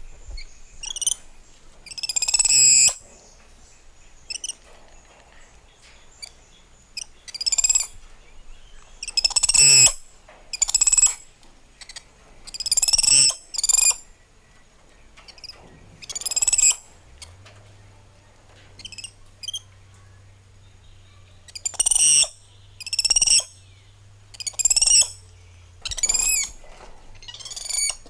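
Spider monkeys calling: about fifteen short, high-pitched calls whose pitch bends up and down, each under a second long, spread out with quiet gaps between them.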